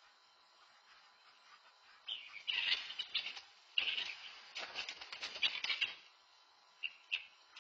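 Ducks quacking and flapping their wings in a ragged flurry for about four seconds, then two short calls near the end, picked up by an outdoor security camera's microphone.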